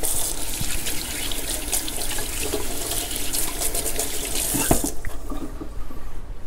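Kitchen sink faucet running while hands are washed under the stream, then shut off about five seconds in.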